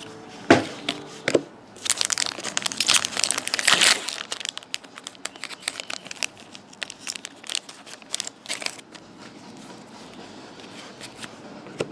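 A trading card pack wrapper being torn open and crinkled, loudest from about two to four seconds in, after a sharp tap about half a second in. Then lighter crackles and clicks as the cards inside are slid out and handled.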